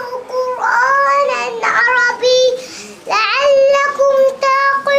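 A child singing in phrases of long held notes, with short breaks between them.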